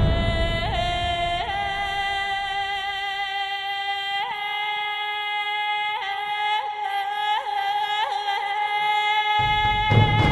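Background music: a held high tone with quick upward flicks every second or so, yodel-like. Near the end a louder, deeper part comes in.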